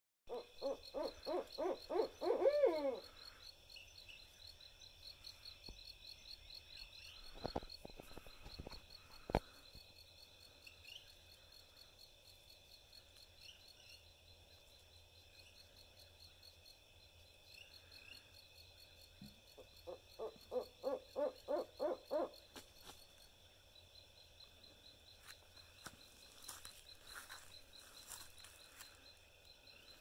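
Barred owl hooting: a fast run of rhythmic hoots that ends in a falling note, and a second rapid series of hoots about twenty seconds in. A steady high trilling runs underneath, and a few sharp knocks come a few seconds after the first calls.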